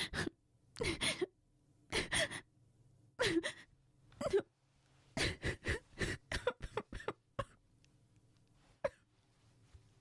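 A woman crying: a run of short, gasping sobs and catching breaths, coming faster in the middle and thinning out to a last sob near the end.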